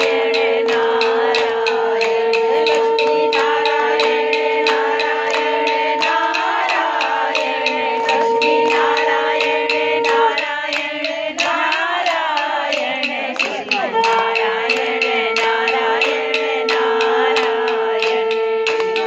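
A group of worshippers singing a devotional song, kept in time by a steady beat of sharp strikes about three a second. A steady held tone runs underneath; it breaks off about ten seconds in and returns a few seconds later.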